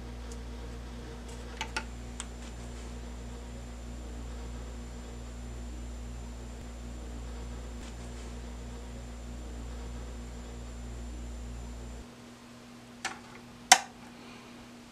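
Steady electrical mains hum with a faint high whine, which stops about twelve seconds in. Then two clicks, the second one loud, as the Variac's power switch is flipped on.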